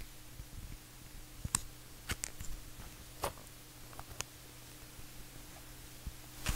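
Small clicks from the metal filler of a Parker Click-Filler fountain pen being worked by hand, ending in one much louder sharp click near the end as the filler hump snaps back into its locked position.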